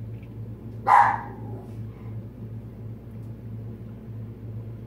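A pet dog barks once, a short loud bark about a second in, over a steady low hum.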